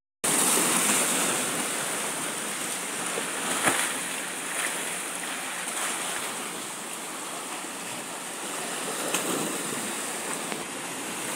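Sea surf: waves washing steadily against concrete breakwater blocks, with two brief knocks, one about four seconds in and one later on.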